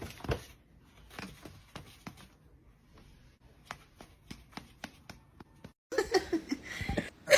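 A series of light, irregular clicks and taps. About six seconds in, a louder, denser stretch of sound begins.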